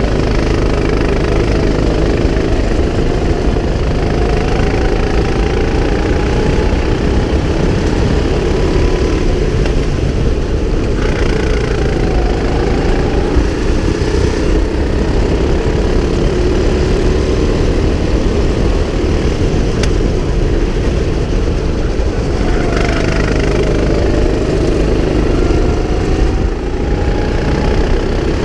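Go-kart engine running hard on a lap, heard from on board, its pitch rising and falling with the throttle.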